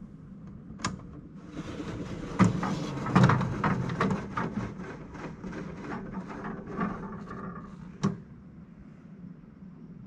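A pleated cellular window shade being raised by hand: a click, then several seconds of fabric rustling and scraping with small knocks as the shade folds up, and one more sharp click near the end.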